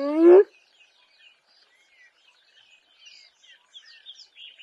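A female spotted hyena's low, drawn-out whoop call, held on one pitch, then rising sharply at the end and cutting off about half a second in. Faint bird chirps follow.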